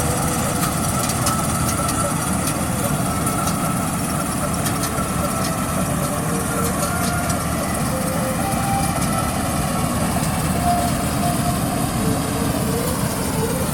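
Heavy farm machinery engine running steadily, as at a rice harvest with a combine harvester and tractor at work.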